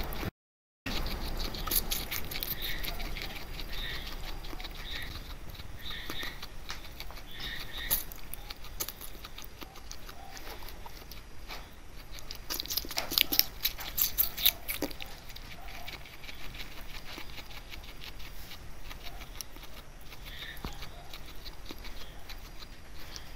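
Guinea pig chewing crisp raw pear chunks: a rapid, steady run of small wet crunches and clicks, denser and louder for a couple of seconds around the middle.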